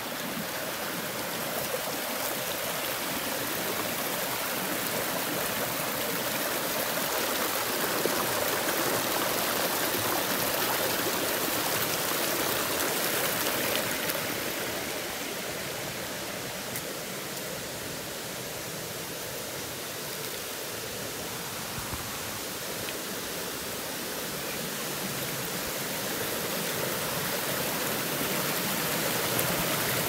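Water rushing and splashing over rocks in a shallow mountain stream, a steady wash that dips a little past the middle and swells again near the end.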